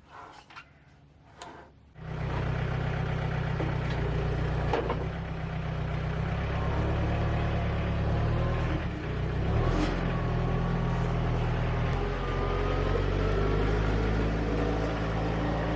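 A couple of faint clicks, then an engine comes in suddenly about two seconds in and runs steadily with slight swells in level.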